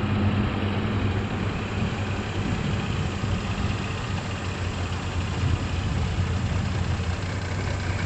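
Heavy diesel engine idling steadily at a low, even pitch.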